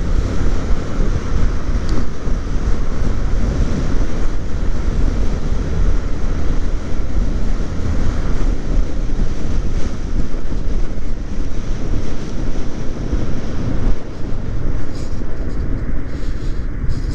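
Steady wind rush buffeting the microphone of a camera on a moving motorcycle, with the bike's running noise underneath.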